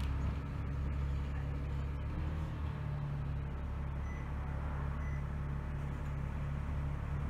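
Dennis Trident double-decker bus's diesel engine running under way, heard from inside the passenger saloon: a steady low drone that shifts slightly in pitch about two and a half seconds in.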